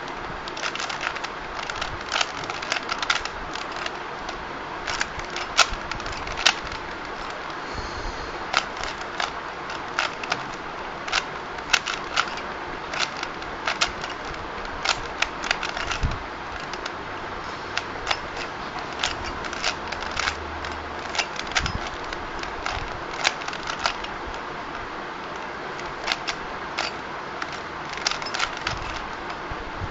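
Plastic Rubik's Cube being turned by hand in a speed-solve: irregular clicking and clacking of the layers, in quick runs of turns with short pauses between, over a steady background hiss.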